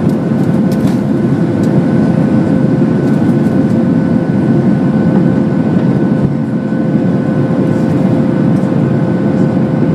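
Boeing 737-600's CFM56-7B turbofan engines heard inside the passenger cabin during takeoff: a loud, steady rushing drone with two steady whining tones riding on it.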